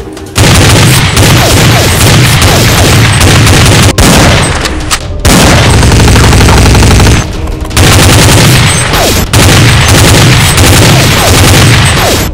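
Loud automatic-gunfire sound effect dubbed over the footage, running in three long sustained bursts with short breaks between them.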